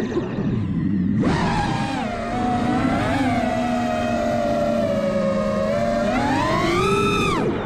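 FPV drone's electric motors whining, the pitch rising and falling with the throttle. The whine drops sharply right at the start, picks back up about a second in, holds fairly steady, then rises and cuts off sharply near the end.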